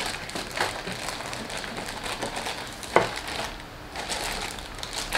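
Clear plastic bags around plastic model-kit parts crinkling and rustling as the parts are handled and laid down, with a sharp tap about three seconds in.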